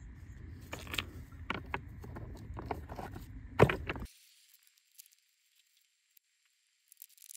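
Rocks clacking and knocking against each other as stones are fitted by hand into a dry-stacked stone stream bed: a handful of sharp clacks, the loudest about three and a half seconds in. After about four seconds the sound drops almost to silence, with only a faint hiss.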